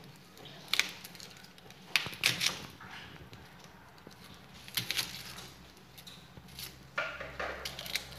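Kitchen knife tapping and scraping against a plastic cutting board while small onions are peeled and cut: a handful of sharp, irregular clicks.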